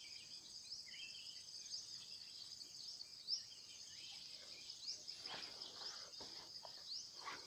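Faint insect chorus: a steady high buzz with short rising chirps repeating through it. A brief soft bump comes about three seconds in.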